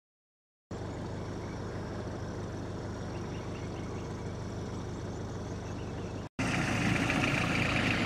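Engine of a Toyota HiAce camper van idling steadily, a low, even hum that starts after a moment of silence and becomes louder after a cut about six seconds in.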